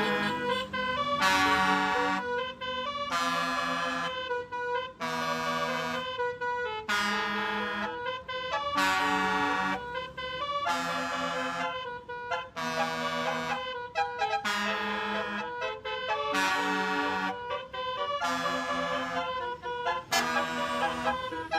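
Basuri multi-tone bus horn (telolet) playing a tune: a long run of held, chord-like horn blasts, roughly one a second, each on steady pitches that change from blast to blast.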